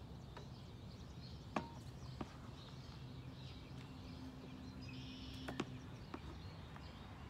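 Shovel scooping potting soil from a plastic tub, with a few sharp knocks of the blade against the tub, the loudest about a second and a half in and another near the end.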